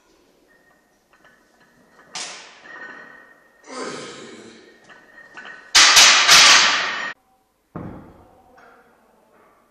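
Forceful breaths and sharp thuds during a heavy barbell back squat (275–285 kg), in separate sudden bursts. The loudest is a harsh burst of noise a little past halfway that cuts off abruptly, followed by a thud.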